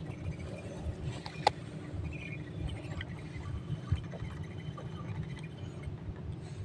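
Low, uneven rumble of wind buffeting the microphone on an open boat, with two sharp clicks, one about a second and a half in and one about four seconds in.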